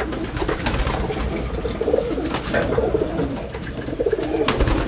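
A loft full of racing homer pigeons cooing, several birds overlapping, with sharp wing flaps and scuffles now and then, the loudest about four and a half seconds in.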